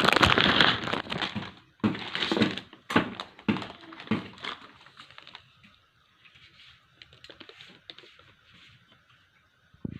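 Packing material rustling and crinkling in several loud bursts as a mixer-grinder jar is unwrapped, fading after about four seconds into faint light clicks and taps.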